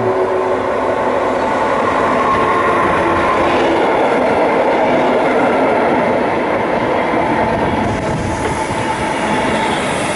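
A Siemens Vectron electric locomotive passes close by, its motors giving a whine of several steady tones that fades within the first couple of seconds. The passenger coaches behind it then roll past with a steady heavy rumble of wheels on rail. A faint high hiss comes in near the end.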